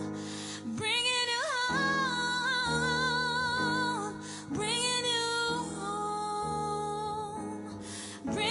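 A woman singing held notes with vibrato into a microphone over piano chords played on a stage keyboard. Two long sung phrases, with a breath before each.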